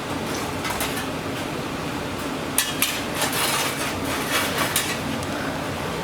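Light metallic clinks and clatter of sheet metal and tools being handled, bunched from about two and a half to five seconds in, over a steady hum.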